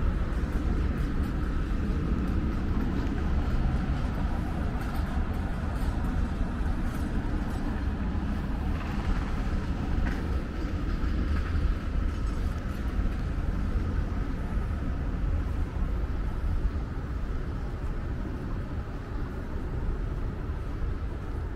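Steady low rumble of street traffic and city background noise.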